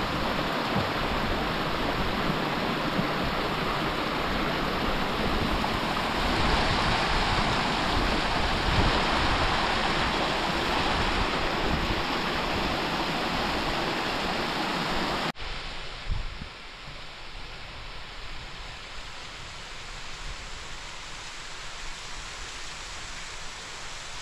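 Steady rushing noise of water, even and unbroken. About fifteen seconds in it cuts off sharply to a quieter, thinner hiss.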